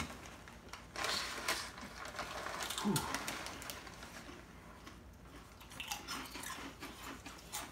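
Plastic chip bag crinkling as hands reach in and pull out pieces, followed near the end by crunching of crisp puffed snacks being chewed.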